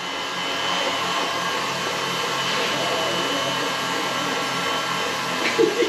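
Electric mixer running at a steady speed with an even motor hum, beating a candy mixture of cooked sugar syrup and gelatin.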